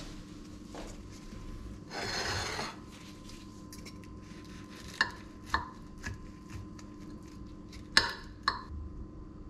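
Knife and fork cutting a crisp pan-fried tortilla wrap on a ceramic plate. A short rasping scrape comes about two seconds in, then the metal cutlery clinks sharply against the plate several times.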